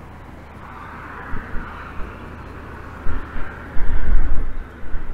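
Wind buffeting the microphone in irregular gusts, strongest about three to four and a half seconds in. Underneath is a faint rushing sound that swells and fades.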